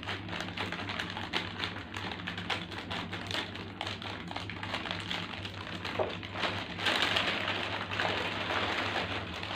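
Plastic snack packets and their cardboard box being handled as a strip of packets is pulled out: irregular clicks, taps and crinkles, busier about seven seconds in, over a steady low hum.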